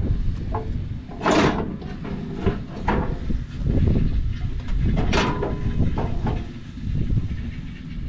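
A metal pry bar clanking and scraping against the combine header's auger as the auger is levered upward. There are two louder scraping clanks, about a second and a half in and about five seconds in, and a lighter knock between them.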